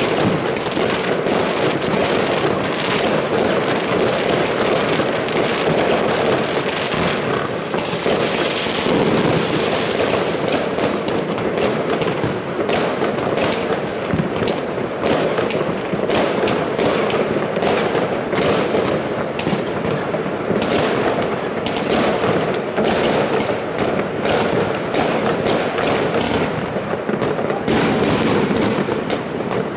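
Many fireworks and firecrackers going off at once across a city: a continuous crackling din, with sharp bangs and pops several times a second throughout.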